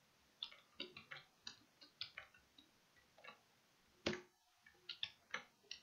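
Scattered short clicks of a computer mouse and keyboard, about a dozen irregular taps, the loudest about four seconds in.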